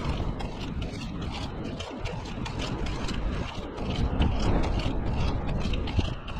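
Sped-up time-lapse audio of a skate ride: a dense, rapid rattle with a low rush, typical of skate wheels rolling over pavement.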